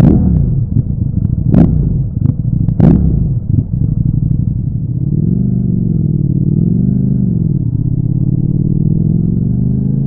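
Ducati Streetfighter V4 S's 1103 cc V4 engine, recorded onboard: sharp throttle blips with the bike standing still, two of them loudest. It then pulls away, its note rising and falling twice and climbing steadily near the end.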